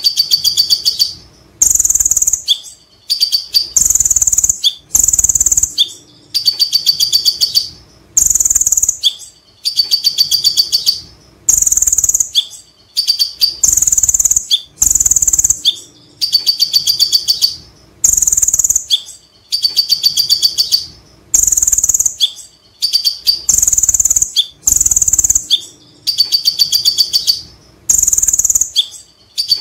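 Male kolibri ninja (konin) sunbird singing its ngekek song. Very high, fast rattling runs of sharp notes, each burst about a second long, come one after another with short gaps.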